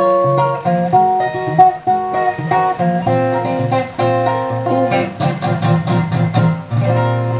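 Acoustic guitar played live, picking a series of melody notes over bass notes in an instrumental passage of a song.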